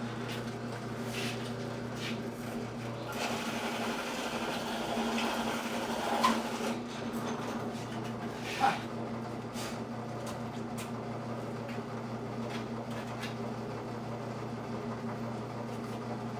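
Electric drill motor running steadily while drilling a hole, with two short high squeals about six and nine seconds in as the bit bites.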